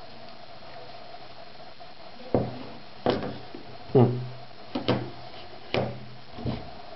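A string of sharp knocks and thumps, about seven of them starting some two seconds in, as a smartphone and hands are handled on a tabletop. The loudest comes about four seconds in, with a dull low ring after it.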